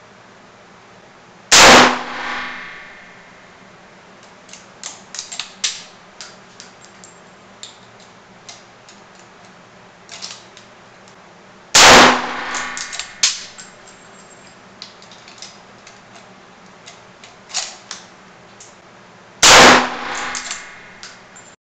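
Three shots from a scoped Lee-Enfield .303 rifle fitted with a muzzle brake tuner, the first about two seconds in and the others roughly ten and eight seconds later, each ringing briefly in the enclosed range. Between the shots come clicks and clacks of the bolt being worked.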